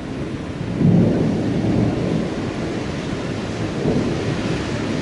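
Rolling thunder from a passing thunderstorm: a low rumble swells loudest about a second in and rolls on, with another swell near four seconds, over a steady hiss of rain.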